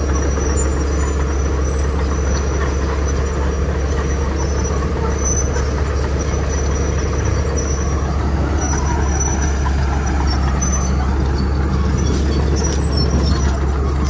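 Komatsu crawler bulldozer's diesel engine running steadily under load as its blade pushes gravel: a constant low drone.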